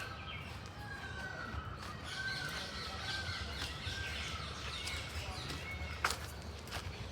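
Several birds calling over one another, a tangle of short gliding squawks and chirps, with a sharp click about six seconds in.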